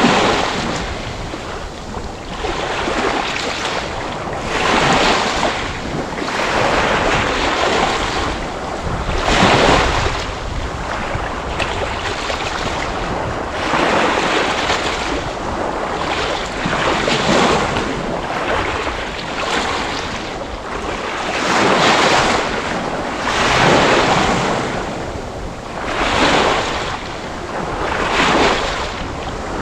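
Ocean waves breaking and washing on the shore, in a continuous rush that swells into a louder surge every few seconds.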